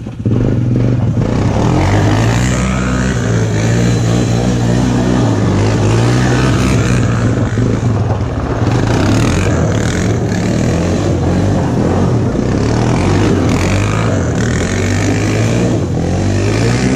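Four-wheeler engine running hard and steady under throttle as the quad spins around on gravel, its pitch shifting in steps, with the spinning tyres throwing gravel and dust.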